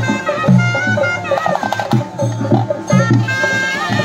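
Traditional festival music: drums beating a steady rhythm under a high, wavering melody line.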